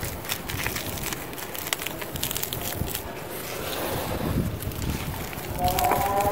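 Hands crushing and crumbling dry, powdery cement lumps: a crunchy, gritty crackle of breaking clumps, with crumbs and dust sifting down into a plastic tub. Background music begins near the end.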